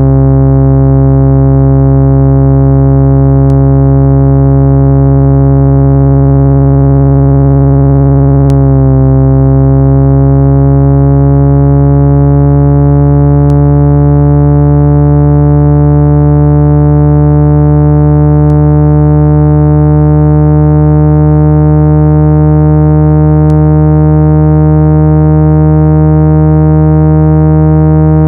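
Loud, steady synthesized low hum centred on 165 Hz with a stack of overtones: a speaker-cleaning tone meant to vibrate dust out of a phone speaker. About nine seconds in it jolts briefly, and the upper overtones then drift slowly upward.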